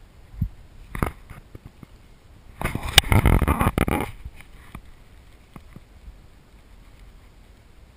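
Handling noise on a handheld camera's microphone: a couple of knocks early on, then a loud second-and-a-half of rubbing and rustling with a sharp click in it, as the camera is picked up and turned around for a selfie, followed by a few light taps.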